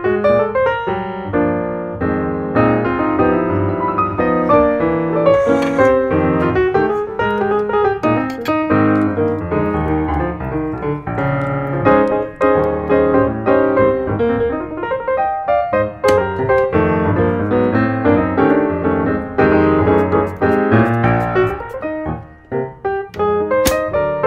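Background piano music: a continuous run of notes, with no speech.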